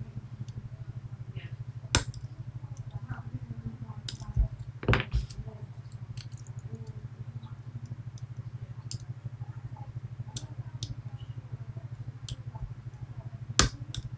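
Lock picking in a Medeco Biaxial lock: faint metal ticks and scrapes of the pick and tension tool, with a few sharper clicks about 2 s in, around 5 s, and near the end, over a steady low hum.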